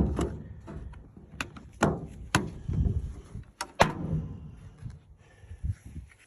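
Glock 44 .22 LR semi-automatic pistol being fired: a string of sharp cracks with short echoes. The four loudest come about two seconds apart at first, then half a second apart, with fainter cracks among them.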